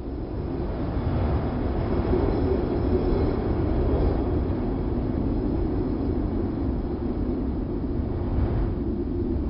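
Wind sound effect: a steady, low rumbling rush of wind that swells slightly about a second in.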